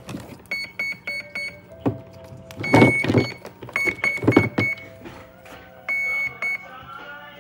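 Twin OSE Raider 150 brushless ESCs playing their power-up beeps as the boat's battery packs are plugged in: groups of short, high, steady beeps and a couple of longer beeps, with two loud clacks from the connectors being forced together in the middle.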